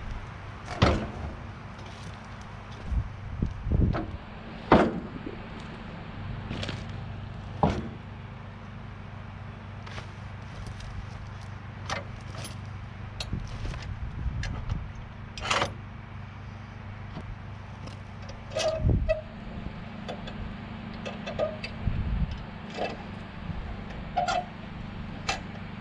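A sawmill's gas engine idling steadily with a low hum, under a string of sharp, irregular knocks and clunks from boards being handled on the mill.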